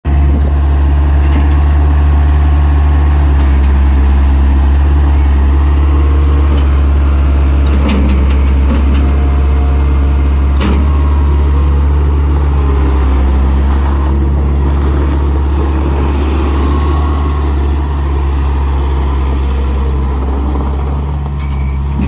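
Bobcat 743 skid steer loader's engine running at a steady speed while the machine drives and turns, with a couple of brief knocks partway through.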